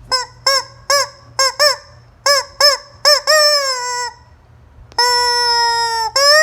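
Chicken squawking: a quick run of about eight short calls, each rising and falling in pitch, then longer drawn-out calls, the first sliding down in pitch and the next two held level for about a second each.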